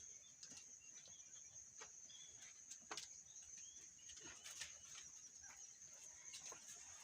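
Faint farmyard ambience: a steady high-pitched whine with scattered clicks and a few short bird chirps.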